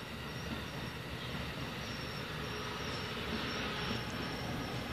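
Amtrak Capitol Corridor bi-level passenger cars rolling past: a steady rumble of steel wheels on the rails, with a thin, steady high-pitched wheel squeal over it.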